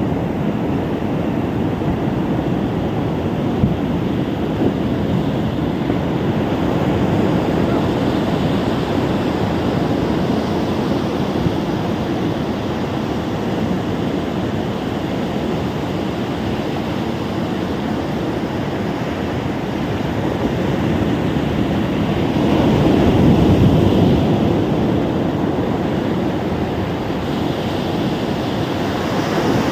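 Ocean surf washing onto a beach, a steady rush of waves that swells louder about three quarters of the way through.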